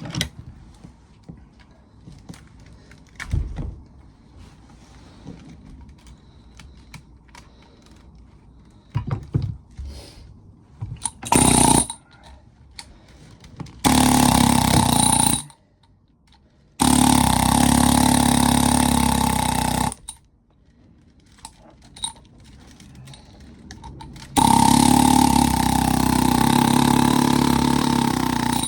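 Pneumatic air hammer chiselling at a scrap washing machine motor, firing in bursts that start and stop abruptly: a short one about eleven seconds in, then three longer runs of a few seconds each. Light clinks and knocks of metal parts being handled come between the bursts.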